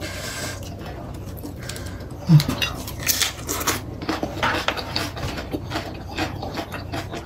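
A person chewing food close to the microphone, with many irregular wet mouth clicks and smacks. A short low voice sound comes about two seconds in.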